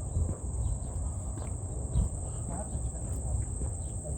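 Insects trilling steadily at a high pitch, over a low rumble with a short thump about halfway through.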